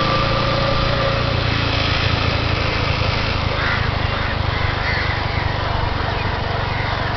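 Small vehicle engine running steadily at cruising speed, heard from on board the moving vehicle with wind and road noise.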